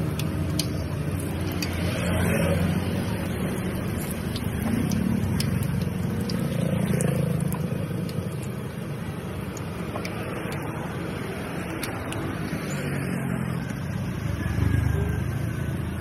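Dough frying in a wok of hot oil, a steady sizzle. Underneath it, a low rumble of passing street traffic swells and fades several times.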